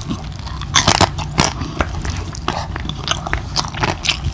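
Close-miked chewing of crispy lechon kawali (deep-fried pork belly), its crackling skin crunching in irregular sharp snaps, loudest around a second in.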